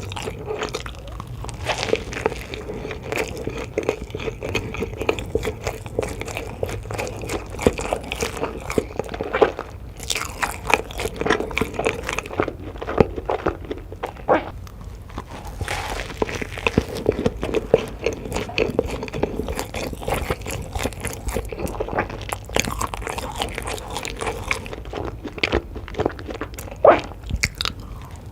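Close-miked eating: biting into and chewing crunchy food, with a dense, irregular run of crunches and wet clicks.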